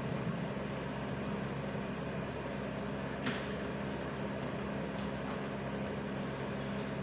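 Steady low hum with a hiss over it, like a fan or air conditioner running, and a single light click about three seconds in.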